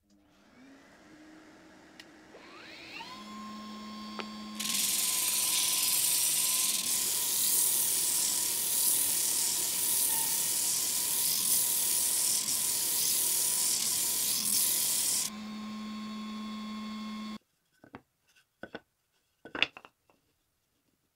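A small electric power tool motor winds up with a rising whine and settles to a steady speed. A loud hiss rides over it for about ten seconds, then stops. The motor runs on for a couple of seconds and cuts off suddenly, followed by a few sharp clicks.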